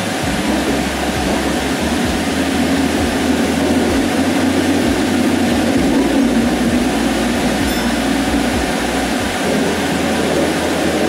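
Interior running noise of a Fukuoka City Subway Nanakuma Line linear-motor train in a tunnel: a steady rumble with a low hum underneath, easing a little toward the end as the train nears Watanabe-dori station.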